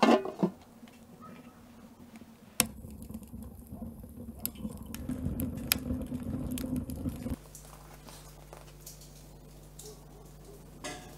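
A clank of a metal lid set on a cast-iron cauldron, then a wood fire burning in a rocket stove: a low rushing with a few sharp crackles. The fire sound cuts off about seven seconds in, leaving a faint steady hum.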